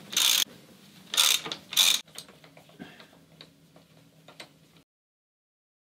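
Half-inch drive socket ratchet being worked to undo a fastener on the front wheel spindle: three quick loud ratcheting strokes in the first two seconds, then a few lighter clicks, before the sound cuts off suddenly.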